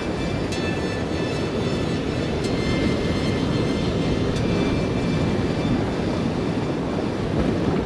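Steady low rumble of sea surf washing over a rocky shore, with faint steady high tones above it.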